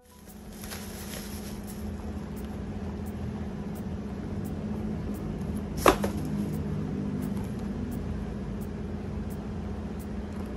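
Plastic wrapping handled and pulled off a small cardboard box, with one sharp snap about six seconds in, over a steady low hum.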